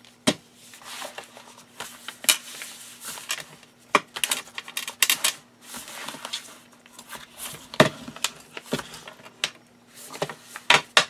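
Paper pages being pressed and smoothed down by hand on a craft mat: soft rubbing and rustling of paper with irregular sharp clicks and taps.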